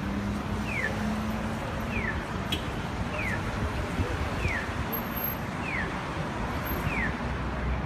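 Accessible pedestrian crossing signal chirping: short single chirps, each falling in pitch, repeating evenly about once a second, which shows that the walk signal is on. Steady city traffic noise runs underneath.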